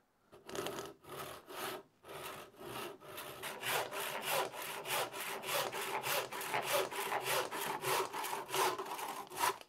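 Handsaw crosscutting a green beech branch clamped in a vise: a few slow starting strokes, then steady back-and-forth strokes about two a second, stopping abruptly near the end as the piece is cut through.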